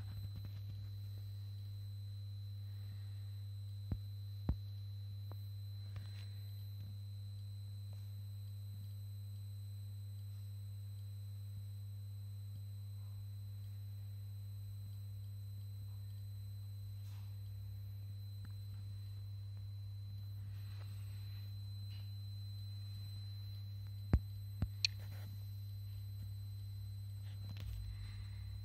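Steady electrical hum from running mains-powered Soviet lab equipment (a bench power supply and a C1-72 oscilloscope), with a faint high whine above it. A few short sharp clicks cut through: two about four seconds in and three around twenty-four seconds in.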